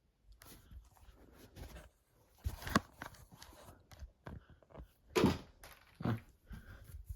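Handling noise from a plastic straw-and-connector cube being moved about: scattered rustles and light knocks, with louder thumps about two and a half, five and six seconds in.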